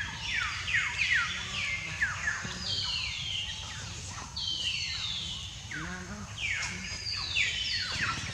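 Young macaque screaming: a continuous string of high squeals, about two a second, each falling sharply in pitch.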